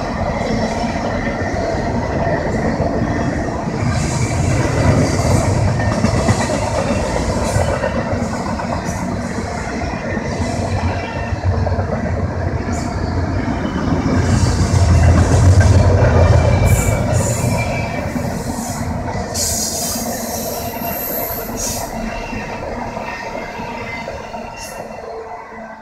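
Double-stack intermodal container train rolling past on steel wheels: a steady rumble of the well cars with wheel clatter and a brief high squeal about twenty seconds in. The sound dies away near the end as the cars pass.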